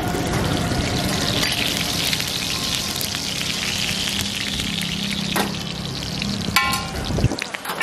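Oil sizzling and spattering on a hot iron tawa as a lachha paratha fries: a steady crackling hiss. A short metallic clink rings out near the end.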